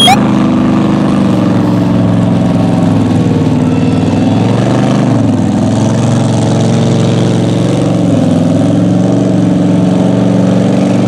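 Lifted Chevy Blazer mud truck's engine running steadily as it wades through bog water, the pitch dipping briefly about five seconds in and again around eight seconds.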